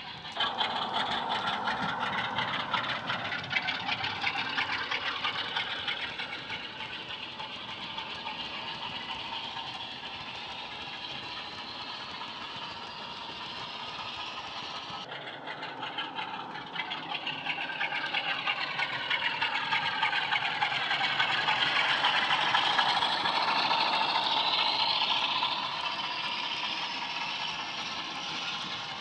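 Sound-decoder recording of a Class 47 diesel's Sulzer engine, played through a small double iPhone speaker in an OO-gauge model locomotive: the engine runs under power with its pitch rising and falling, mixed with the model's wheels rattling on the track. It grows louder in the second half.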